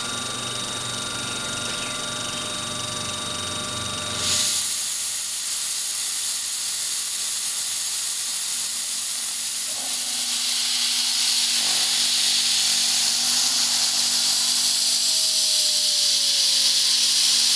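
CNC milling machine with a 1/8-inch carbide end mill profiling a brass gear: the spindle runs with a steady whine. About four seconds in, a mist-coolant spray nozzle comes on with a loud, steady hiss that covers the machine for the rest of the time.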